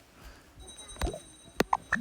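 Two sharp clicks, about a second in and again about half a second later, with light handling noise and a faint high whine between them.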